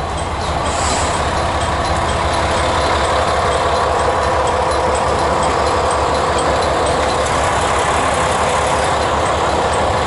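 Diesel engine of a KiHa 40 railcar idling at the platform, a steady hum that grows a little louder in the first couple of seconds.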